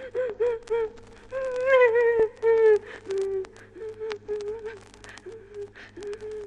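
A high voice gives a series of short, wavering cries, with a longer cry that bends in pitch about a second and a half in. It is a horror sound effect played from a vinyl record, with surface clicks and a steady low hum underneath.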